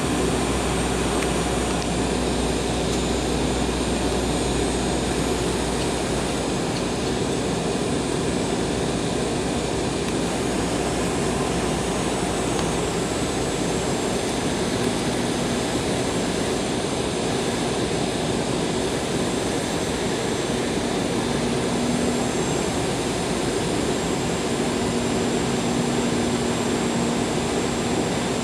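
Steady jet engine and airflow noise of an Embraer 190 on approach, heard from inside the cabin. The low rumble eases about seven seconds in.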